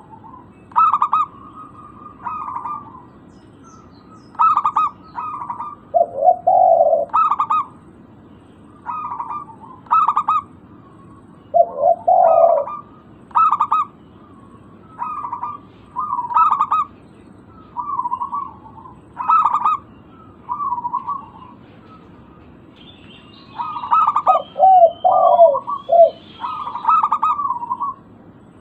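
Zebra dove (perkutut) singing, a run of short cooing phrases repeated every second or so, some of them lower-pitched. Near the end a faint high twittering joins in.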